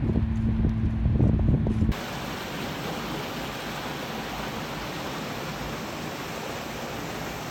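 A waterfall's steady rush of falling water, coming in on a sudden cut about two seconds in. Before it there is a louder low rumble with a steady hum.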